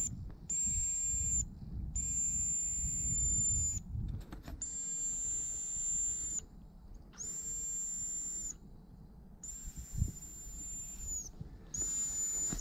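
Dog whistle blown in a series of about six long, steady, high-pitched blasts, each held one to two seconds with short gaps, to call a distant dog back. Wind rumbles on the microphone underneath.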